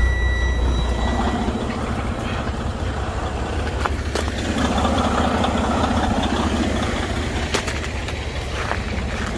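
Semi truck's diesel engine idling just after start-up, with a fast, even low clatter. A high steady whine and a deep hum stop about a second in.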